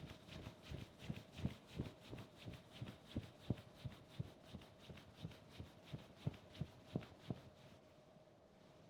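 Palm rubbing back and forth over the forehead in a sinus-opening self-massage, faint, even strokes about three a second that stop near the end.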